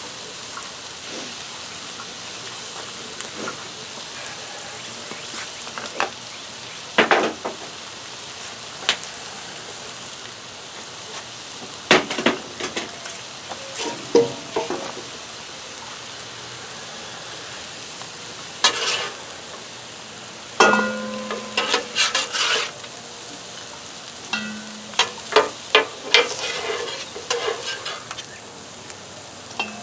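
Cauliflower fried rice sizzling on a homemade flat-top griddle, with metal spatulas scraping and clinking against the griddle top now and then as the rice is turned and scooped. The scrapes and clinks come thickest about two-thirds of the way through, some with a brief metallic ring.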